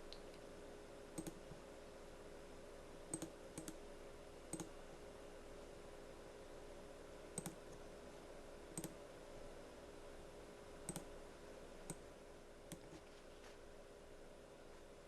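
Near-silent room tone with a steady faint hum, broken by a dozen or so faint, irregular clicks.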